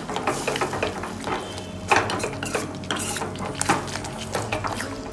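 Spatula scraping and knocking against a stainless steel kadhai while stirring a thick curry gravy, in irregular strokes, the loudest knock about two seconds in.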